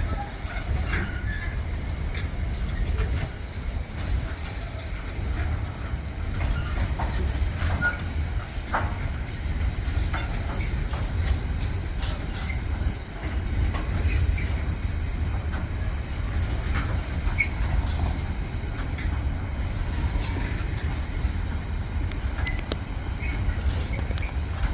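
Container wagons of a freight train rolling past, a steady low rumble with scattered wheel clicks and brief squeals from the wheels on the rails.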